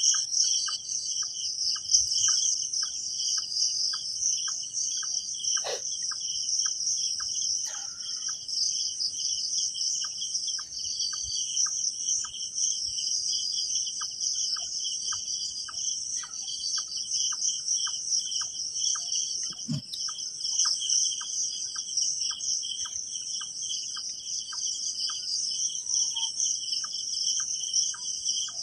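Crickets trilling steadily in a continuous high chorus, with a separate short tick repeating about twice a second, pausing briefly partway through, and a few faint knocks.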